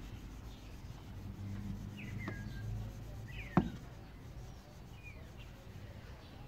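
Cloth rag rubbing and buffing furniture polish on a metal exhaust tip, with one sharp knock about three and a half seconds in.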